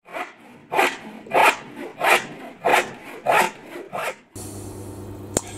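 Six even strokes of a hand tool scraping across wood, about one and a half a second, then a sudden cut to a faint low hum with a single sharp click near the end.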